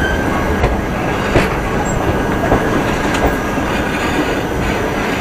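Indian Railways express train, the 17007 Secunderabad–Darbhanga Express, running along the track as it pulls away from a station: a steady rumble of coach wheels on the rails with a few faint clicks.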